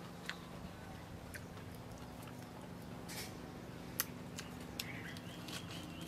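Eating sounds: chewing and scattered small clicks of handling food, with a sharp clink about four seconds in as a spoon knocks a glass bowl of chili dipping sauce. A cat starts meowing near the end.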